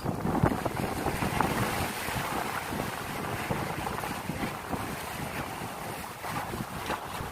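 Wind buffeting the microphone over the wash and splash of rough sea waves.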